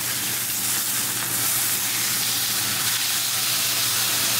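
Beef steak sizzling in hot olive oil in a frying pan, a steady hiss, just after being turned over with tongs onto its unseared side.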